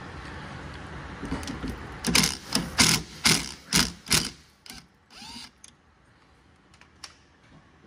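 Ratchet wrench clicking in about six short runs roughly half a second apart, loosening 10 mm bolts, followed by a softer run of clicks.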